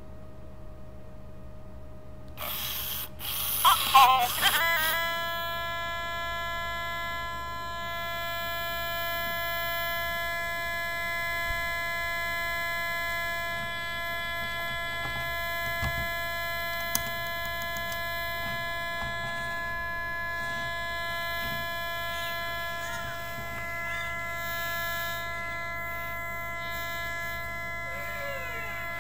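Malfunctioning original Furby: after a short garbled outburst about three to four seconds in, its speaker sticks on one continuous electronic tone, a steady buzzing drone that does not change. Near the end a few warbling chirps sound over the drone.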